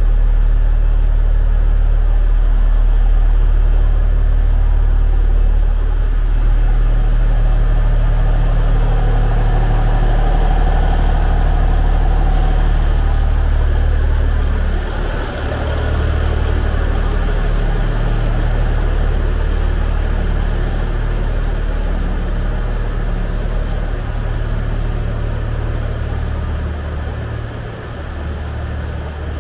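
The diesel engines of a stopped JR East Kiya E195 rail-transport train idling: a loud, steady low hum whose pitch shifts a little about halfway through.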